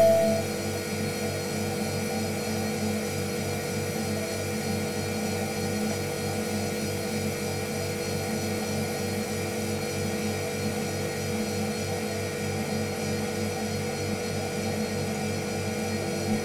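A steady mechanical hum that holds level and pitch throughout, with a short higher note and a bump in loudness at the very start.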